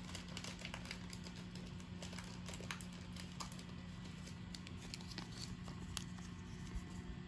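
Baseball cards being handled and slid apart by hand: faint scattered clicks and rustles of cardboard, over a steady low hum.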